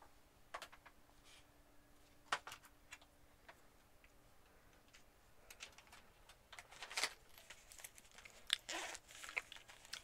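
Faint handling sounds: scattered small clicks and rustles as a cable is handled and plugged into the side of a laptop, busier in the second half.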